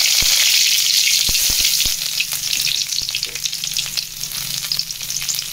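Cumin seeds and fresh green leaves sizzling and crackling in hot oil in a metal kadai, the tempering just started. The sizzle is loudest in the first couple of seconds, then settles to a steady fry with scattered pops.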